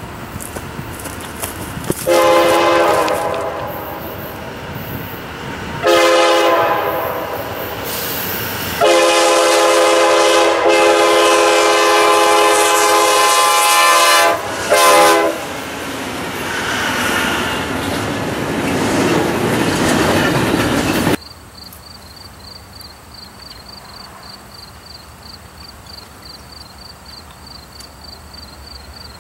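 CSX diesel freight locomotive sounding its multi-chime air horn for a grade crossing: a blast of about a second, a longer one, a very long one of about five seconds and a short final toot, followed by the train rolling through with wheel and rail noise. Near the end the sound drops suddenly to a much quieter scene with a faint, even high-pitched pulsing.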